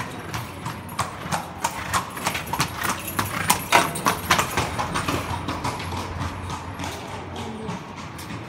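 Hooves of a horse pulling a carriage clip-clopping on stone paving. The hoofbeats grow loudest around the middle and fade over the last few seconds.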